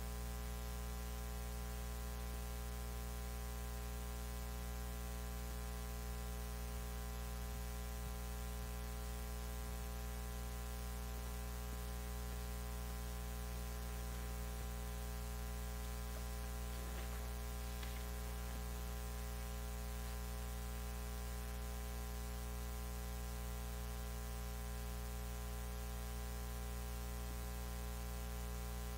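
Steady electrical mains hum with a faint hiss in the audio feed, unchanging throughout.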